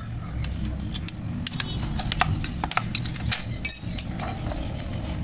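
Spanner and bolts clicking and clinking as a motorcycle rear brake master cylinder is unbolted and worked free of its mounting bracket, with one sharper metallic clink about three and a half seconds in.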